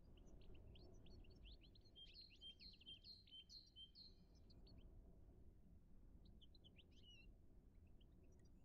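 Faint birdsong: a small bird sings a quick run of chirping notes about two seconds in, with a few more chirps near the end, over a low, steady outdoor rumble.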